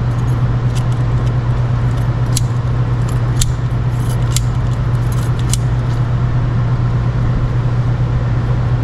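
Safety wire pliers twisting and pulling safety wire tight, with light metallic clicks about once a second that stop about six seconds in, over a steady low hum.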